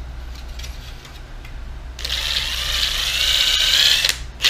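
Handheld drill spinning a polishing pad to buff plastic gauge-cluster parts. It whines up about halfway in, rising slowly in pitch, stops for a moment near the end, then starts again.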